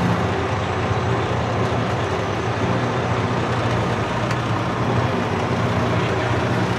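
Truck engine running steadily at low speed while being maneuvered into a parking spot, heard from inside the cab.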